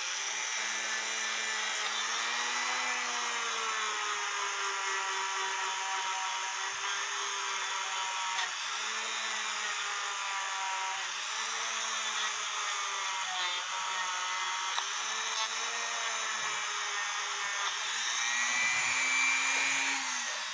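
Dremel rotary tool with a cloth polishing disc running steadily while buffing the brass plate of a cuckoo clock movement, its pitch dipping and recovering as it is loaded against the metal.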